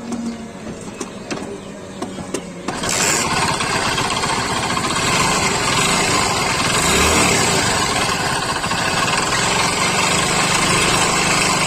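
Old Hero Honda Splendor's single-cylinder four-stroke engine running rough with a 'ghar ghar' grinding noise, getting much louder about three seconds in. The mechanic calls the sound very bad, the sign of a worn engine that needs a full rebuild.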